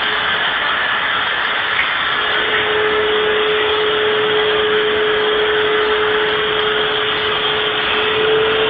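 Vacuum cleaner running steadily: a constant rush of air with one steady motor whine.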